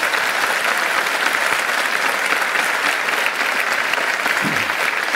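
A large audience applauding steadily, many hands clapping together.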